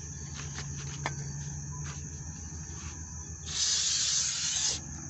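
An aerosol can of WD-40 sprayed once in a hissing burst of a bit over a second, about three and a half seconds in, cleaning the brake parts. Before it there are a few light clicks of handling.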